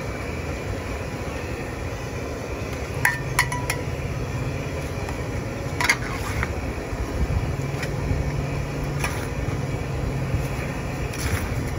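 Metal spatulas clinking and scraping against a wide stir-fry pan as rice noodles are tossed for pad thai: a few sharp clinks, several in quick succession about three seconds in and again about six seconds in, over a steady low rumble.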